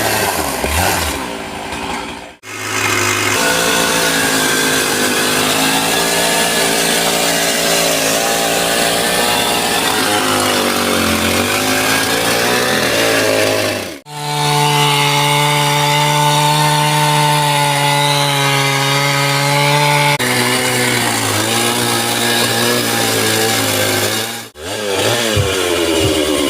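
Stihl two-stroke chainsaw running at high revs while cutting into a big tree, its engine note steady with small sags under load. The sound breaks off abruptly three times, about two seconds in, near the middle and near the end, and each time resumes at a slightly different pitch.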